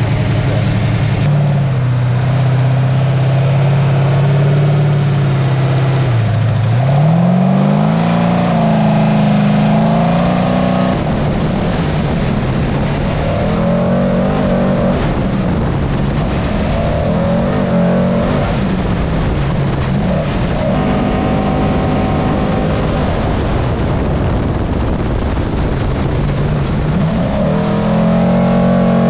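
Engine of a 1000-plus-horsepower all-wheel-drive trophy truck at speed, heard from inside the cab, its pitch swinging up and down as the driver gets on and off the throttle, over a steady rush of wind and dirt noise. About seven seconds in the pitch drops low, then climbs back up.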